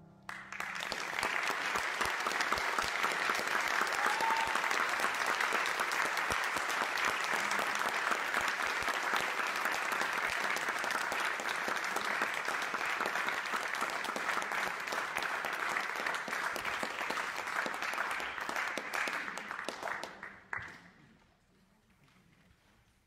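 Audience applause in a hall, starting suddenly just as the music ends and dying away about twenty seconds in.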